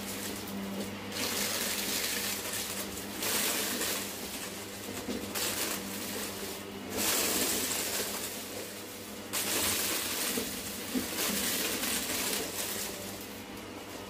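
Hoover Breeze Evo vacuum cleaner running over carpet, sucking up sequins and pom-poms: a steady motor hum under a rushing hiss that swells and drops every second or two.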